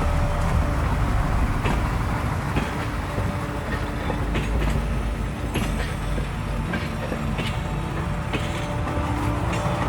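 A train running along the track: a steady low rumble with scattered clicks of the wheels on the rails.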